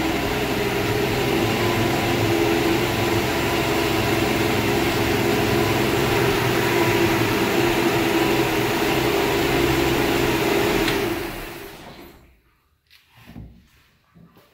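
1965 Mercury M100's 300 cubic-inch straight-six engine idling steadily, then switched off about eleven seconds in, with a click, and running down to a stop within a second. A few faint knocks follow.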